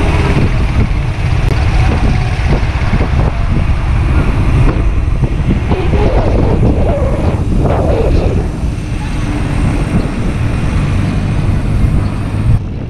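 Wind rushing over the microphone of a bicycle coasting downhill, with the freewheel buzz of a Koozer XM490 freehub hub, the kind of hub known as a 'tawon' (wasp) for its buzzing. The sound drops abruptly near the end.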